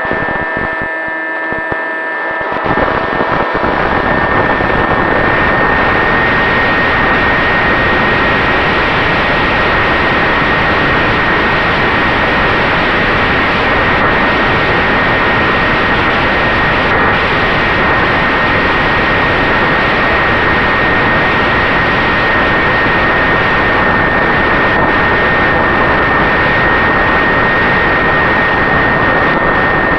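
An electric RC flying wing in flight: its brushless motor and propeller give a steady high whine under a heavy rush of wind on the microphone. For the first two seconds or so the wind rush thins and the motor's tones stand out more clearly, then the rush comes back full.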